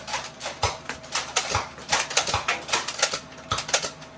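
Nerf blasters being primed and fired, with foam darts striking: an irregular run of sharp clicks and knocks, several a second, some with a low thump.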